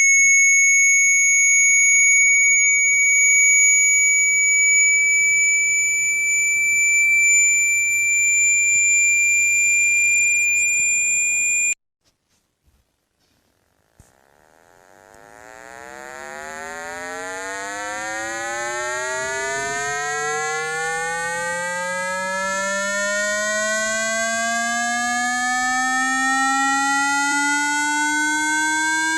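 Synthetic phone water-ejection tones. A steady high-pitched tone creeps slightly upward and cuts off suddenly about twelve seconds in. After two seconds of near silence, a low tone rich in overtones fades in and sweeps slowly upward in pitch, growing louder.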